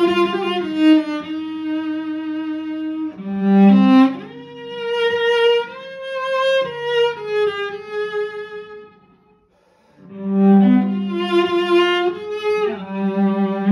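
Solo cello bowed, playing a melodic passage of held notes with some sliding between pitches. It falls silent for about a second around nine seconds in, then the next phrase begins.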